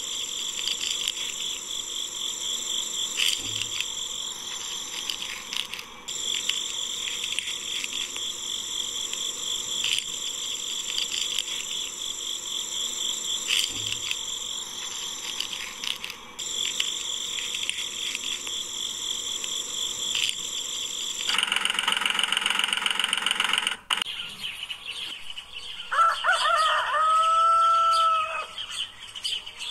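A steady high-pitched chirring background, then a rapid pulsing buzz for a few seconds, and near the end a rooster crowing once.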